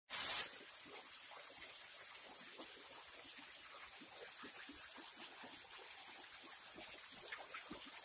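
A small waterfall trickling in thin strands over a low rock ledge and splashing steadily into a shallow creek pool. A brief loud rush of noise comes in the first half second.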